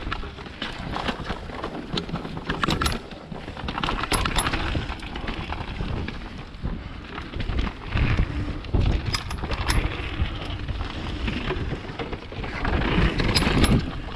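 Mountain bike ridden over a rough, wet trail: wind rumbling on the microphone, with rattles and sharp clicks from the bike jolting over bumps.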